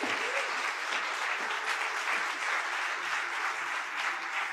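Conference audience applauding steadily.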